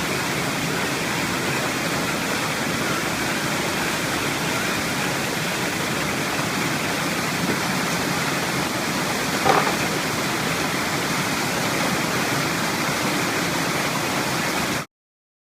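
Coban Rondo waterfall: a steady, loud rush of falling water. A brief short sound stands out about two-thirds of the way through, and the sound cuts off suddenly near the end.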